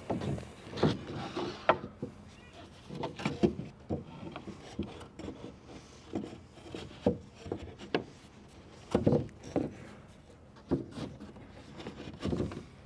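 Wooden cross pieces being worked into slots by hand: irregular knocks of wood on wood, with scraping and rubbing as the pieces slide in.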